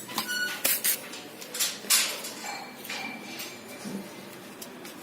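Metal brake parts clinking, clicking and scraping as they are worked loose by hand on a car's front disc brake, with a couple of short metallic rings.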